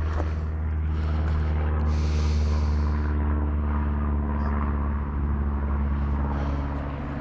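A large engine running steadily, with a deep hum that swells slightly and eases off. There is a brief hiss about two seconds in.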